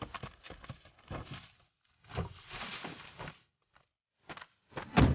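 Footsteps and scuffling, with leafy branches rustling against a pickup truck, a series of irregular knocks and rustles, then a loud thump about five seconds in as someone climbs into the truck's cab.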